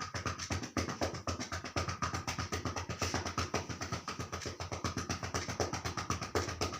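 Rapid, even hand percussion on a patient's chest, about eight dull strokes a second. This is chest physiotherapy, meant to loosen congested phlegm in the lungs so it can be cleared.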